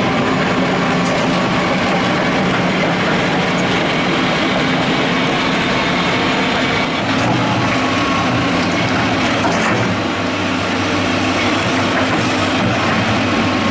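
Hitachi crawler excavator running steadily, its diesel engine humming under the clatter and creak of its steel track links and rollers.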